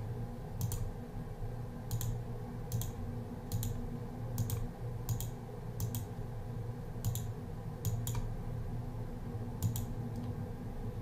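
Computer mouse clicking about once a second, unevenly spaced, over a low steady hum.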